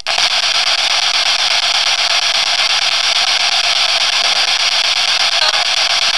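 Steady, loud hiss of static. The on-screen caption claims a spirit voice in it saying "I'll repeat it".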